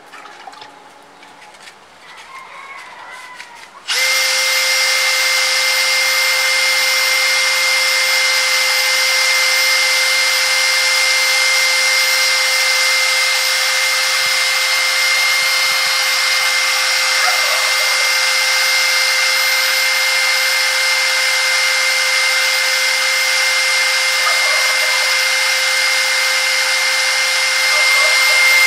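Cordless Makita drill with an abrasive disc in its chuck starts up about four seconds in and then runs at a steady high speed with a constant whine and hiss. The disc is sanding a metal part of a Yamaha Axis 90 scooter's belt drive to remove scratches that would otherwise ruin the drive belt.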